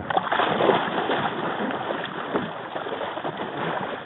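Loud splashing and sloshing of water at a kayak's side, starting suddenly, as a hooked dusky shark thrashes at the surface.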